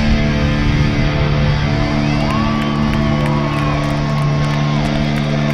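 Live heavy metal band's electric guitars ringing out on a long held chord after the drums stop. About two seconds in, a higher wavering note comes in over it.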